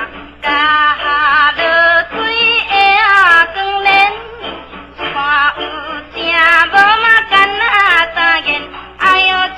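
A Taiwanese Hokkien folk song sung with heavy vibrato over an instrumental accompaniment, in several phrases with short breaths between them.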